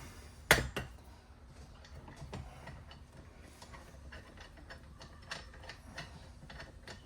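Handling of a steel workpiece being taken off its setup: a sharp clack about half a second in, then scattered light clicks and taps of metal parts.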